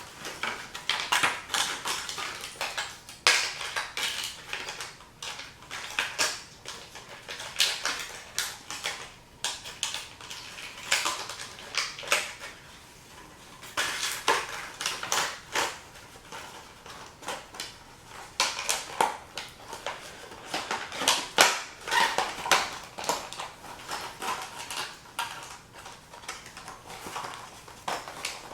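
Fishing tackle and its plastic packaging being handled: irregular crinkling, rustling and light clicks in clusters, with short pauses.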